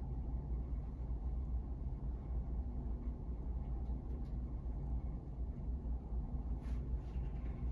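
Steady low background rumble with no clear events, and a faint brief rustle or tick near the end.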